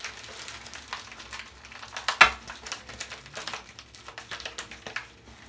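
Crinkling and rustling of a sealed package being handled, with scattered small clicks and one sharper snap about two seconds in.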